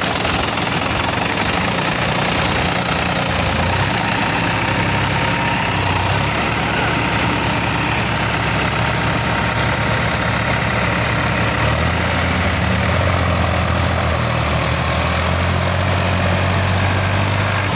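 Two tractors' diesel engines running under load as a New Holland tractor tows a tractor stuck in deep mud out by a chain. The low engine note grows stronger about twelve seconds in.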